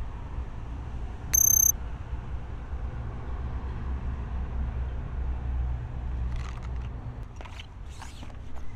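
A single short, high-pitched electronic-sounding beep about a second and a half in, held at one pitch and cut off abruptly, over a steady low rumble. Brief scraping and rustling sounds come near the end.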